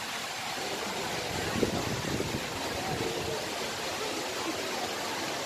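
Steady rush of flowing river water, with a brief bump about one and a half seconds in.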